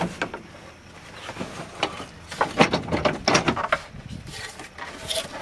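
Knocks and clicks of the laminated swing-out table in a VW Westfalia camper being swung out and handled, with a quick run of sharp knocks between about two and four seconds in and a few more near the end.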